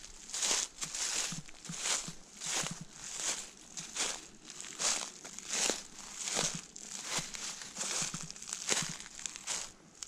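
Footsteps through a thick carpet of fallen autumn leaves, in an even walking rhythm of about two steps a second.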